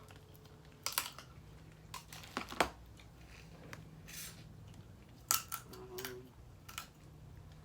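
Eating and food-handling sounds from a seafood boil: scattered sharp clicks and snaps, with a short hiss about four seconds in.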